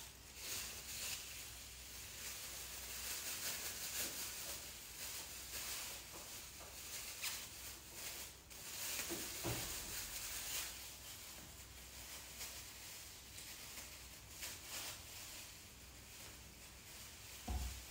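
Boiled lean meat being torn into shreds by hand: a quiet, irregular rustling and scratching of fibres pulling apart, with a brief low knock near the end.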